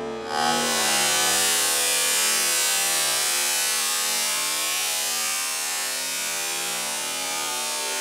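Water hitting a pan of burning cooking oil: a sudden loud hiss about half a second in as the water flashes to steam, then a steady rushing as the oil erupts into a fireball.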